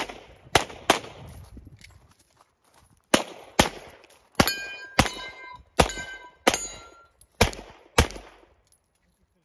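Single-stack pistol fired about eleven times in quick strings, with a pause of about two seconds after the third shot. From the middle onward several shots are followed by steel targets ringing as they are hit.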